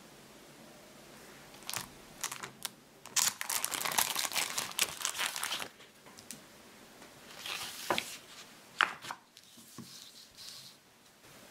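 Thin clear plastic file folder being handled and flexed open: crinkling and crackling of the thin plastic, densest for a couple of seconds early on, with a few sharp snaps. Softer rustling near the end as a paper sheet is slid inside.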